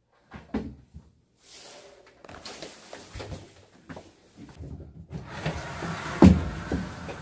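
Knocks, bumps and scrapes of a small drawer cabinet and the round heater on it being handled and shifted, with the loudest thump about six seconds in.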